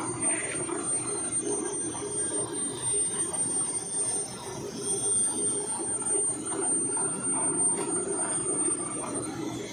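Large geared-head engine lathe running: a steady, rough mechanical drone of turning gears and machinery.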